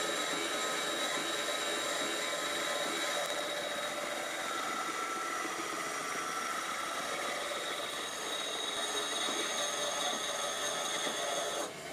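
Homemade band saw with a metal-cutting blade sawing through a 1/4-inch steel plate: a steady, high-pitched metallic scraping whine with several held tones. The sound drops off sharply near the end.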